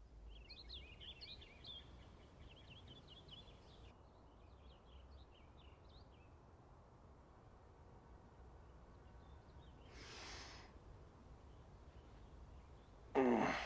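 Quiet outdoor ambience with birds chirping in a quick series of short calls for the first six seconds, over a faint low rumble. About ten seconds in there is a short breathy hiss, and near the end a person lets out a voiced sigh that falls in pitch.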